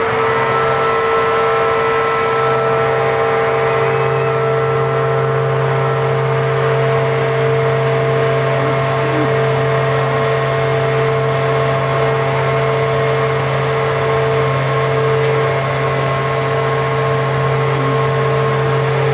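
A riverboat's horn sounding one long, steady, loud blast of several tones at once, starting and stopping abruptly.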